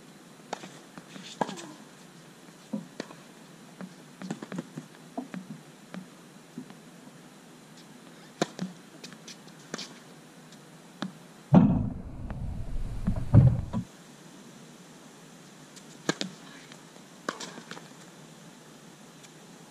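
Tennis rally: scattered sharp pops of racket strings striking the ball and the ball bouncing on a hard court. About halfway through, a loud low rumble buffets the microphone for about two seconds.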